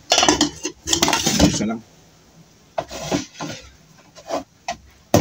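Metal lid of an aluminium rice pot clattering as it is lifted off and set down, with the serving spoon clinking against the pot. A few lighter clinks and knocks of dishes follow.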